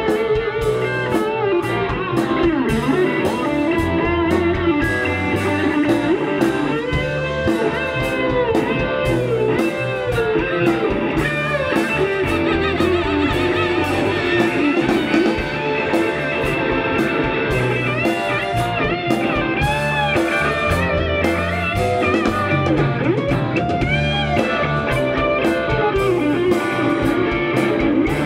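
Live rock band playing: electric guitars over bass and drums, with pitch-bending melodic lines on top.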